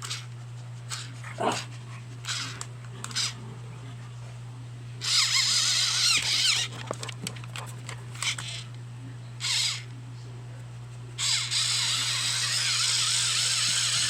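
Pencil sharpener grinding a colored pencil in two loud bursts, one of under two seconds about five seconds in and a longer one of about three seconds starting near eleven seconds in, with short clicks and knocks of the pencil being handled between them.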